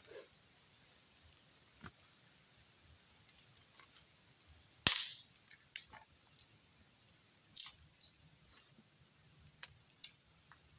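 A few sharp cracks or snaps at irregular intervals, the loudest about five seconds in and two more near the end, over a faint background.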